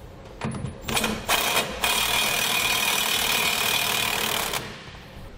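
Cordless impact wrench with an 18 mm socket running down a frame-bracket bolt: two short trigger pulls, then a steady run of about three seconds with a motor whine that winds down near the end. The bolts are only being snugged to take up the slack, not fully tightened.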